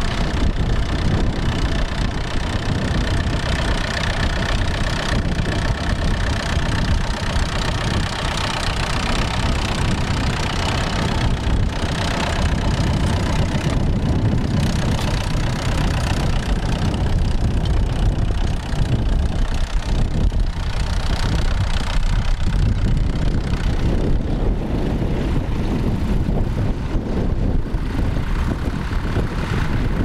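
Grey Ferguson TE20 tractor's engine running steadily under load as it pulls a mounted plough through grassland.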